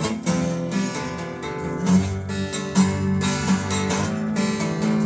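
Acoustic guitar strummed, a chord struck every second or so and left ringing between strokes.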